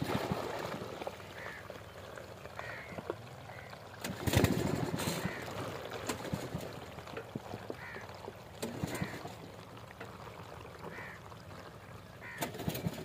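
Crows cawing now and then, over a faint steady low hum, with louder short rasping noises about every four seconds.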